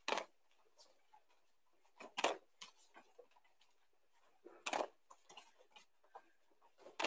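Bare feet landing on judo tatami mats as a judoka jumps into and out of a seoi-nage entry: four thuds about two to two and a half seconds apart, with faint taps between.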